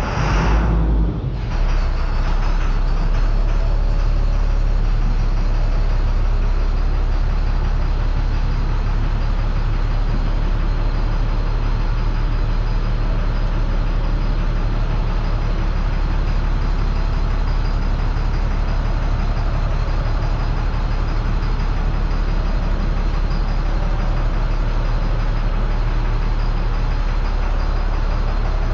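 A heavy motor running steadily: a constant low drone.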